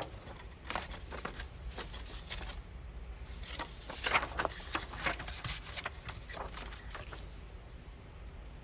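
Paper pockets being handled on a craft table: scattered light rustles and taps, with a louder rustle about four seconds in.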